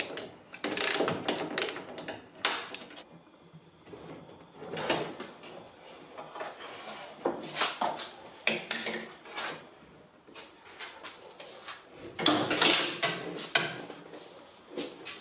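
Clicking, knocking and clattering of metal parts and hand tools being worked inside a bare car door during reassembly, in irregular bursts, the busiest near the end.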